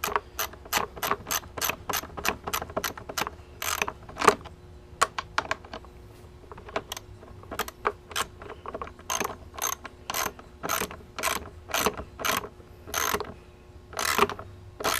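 Hand socket ratchet clicking in quick runs, with short pauses, as it is swung back and forth on a bolt.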